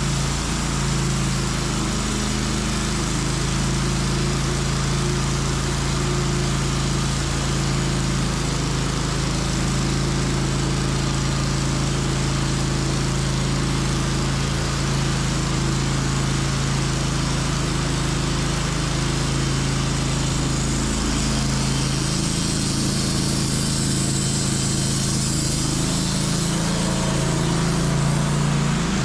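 Portable band sawmill running steadily while sawing through a maple log: a steady engine hum with a hiss over it. The low hum shifts slightly a little over 20 seconds in.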